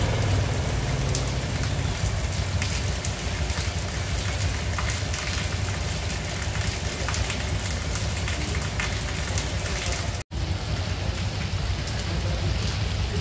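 Steady rain falling on a wet street and awnings, with scattered drops striking close by. The sound cuts out for an instant about ten seconds in.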